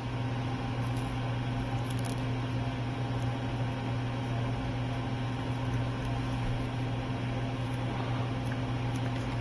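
Steady low electrical hum from running workbench equipment, with a few faint ticks.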